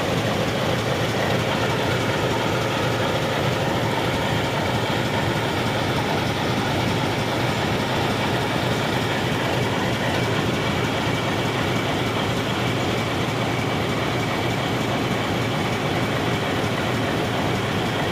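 YDM4 diesel-electric locomotive's ALCO 251 diesel engine idling, a steady, even running sound with no change in speed.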